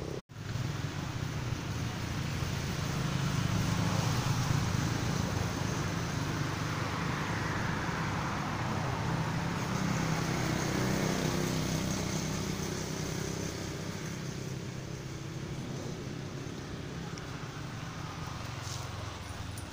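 A motor vehicle engine running with steady road noise, getting louder over the first few seconds and easing off slowly in the second half.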